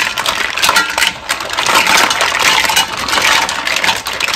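Black mussels tipped from a bowl into a stainless steel pot, their shells clattering against each other and the pot in a dense run of clicks and rattles.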